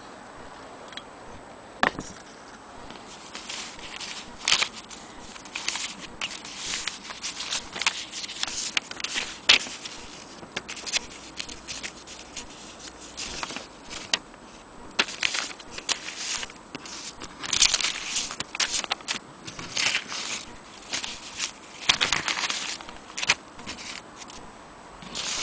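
Paper sheets and envelopes being handled and shuffled, crackling and rustling in irregular bursts, with one sharp knock about two seconds in.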